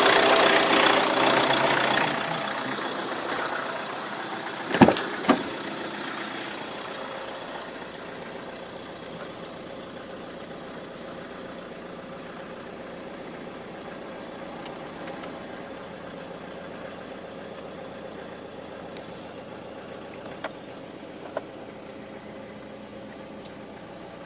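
Ford Tourneo Custom engine idling, loud for the first two seconds, then settling to a quieter steady run; two sharp knocks come about five seconds in, a click near eight seconds and two faint clicks near the end. The owner puts the noise down to the accessory drive belt.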